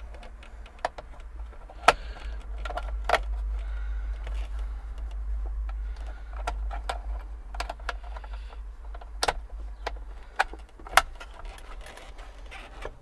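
Irregular sharp clicks and knocks of hard parts being handled and fitted at a tractor's steering wheel and column while an auto-steering motor kit is mounted, about ten clicks spread unevenly.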